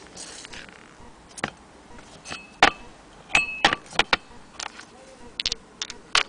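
Small loose metal screws being handled, picked up and set down: about a dozen sharp, irregular clicks and clinks, a couple with a brief high ringing tone.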